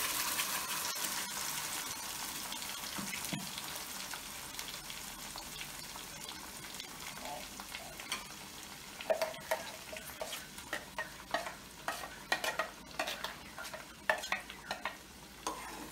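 Ground sesame, peanut and coconut masala paste sizzling as it drops into hot oil in a frying pan, the hiss loud at first and dying down over several seconds. From about nine seconds in, scattered clicks and scrapes as the last of the paste is scraped out of a steel mixer jar into the pan.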